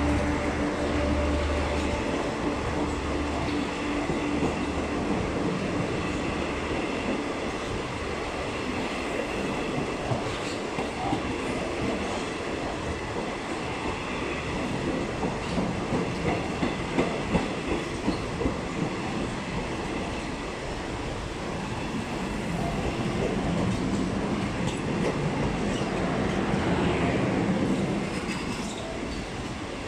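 Passenger train coaches rolling past close by, with a steady rumble and rattle of wheels on the rails. A low hum fades out over the first several seconds. Around the middle comes a run of regular wheel clacks, about two a second, and the sound eases off near the end.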